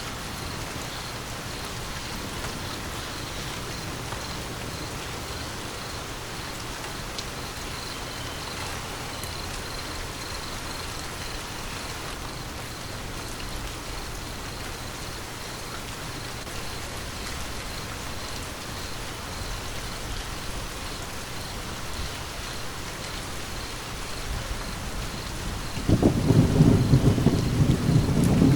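Steady rain falling, with a sudden loud thunder clap and rumble breaking in near the end.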